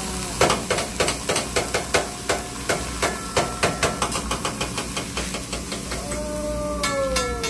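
Metal hibachi spatula tapping on the steel teppanyaki griddle, a quick rhythmic string of sharp clacks about four a second, pausing briefly past the middle and then starting again.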